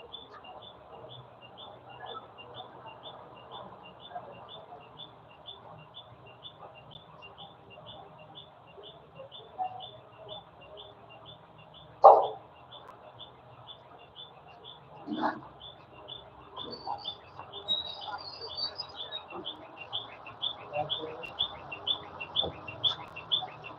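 A high, short chirp repeating evenly about three times a second, typical of a bird calling. A sharp knock comes about twelve seconds in and another about three seconds later.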